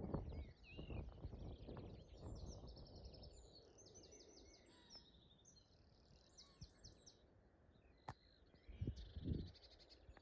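Small songbirds singing, a busy run of rapid repeated chirps and trills. Low rumbles and thuds come in the first couple of seconds and again near the end, with a single sharp click a little before that.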